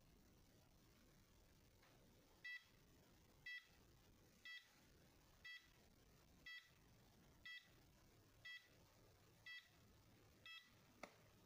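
Electronic beeper on a quadcopter and its radio transmitter sounding nine short, high beeps, about one a second, followed by a faint click near the end.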